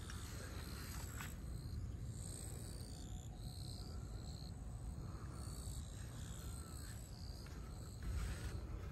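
Wind rumbling on the microphone, with faint background music: short high notes stepping from pitch to pitch.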